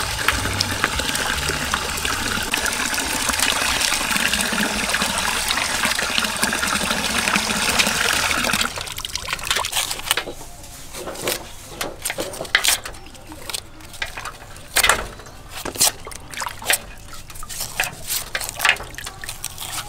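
Water running and splashing steadily into a steel basin as chicken legs are washed by hand. It stops abruptly about nine seconds in. After that come scattered sharp clicks and scrapes of small knives peeling dry onion skins, with light splashes in the basin of water.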